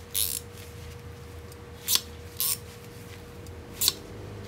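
Izumi hand crimping pliers being worked open and shut, giving four short, sharp metallic clicks a second or so apart as the jaws close and spring back open. The spring return is working freely.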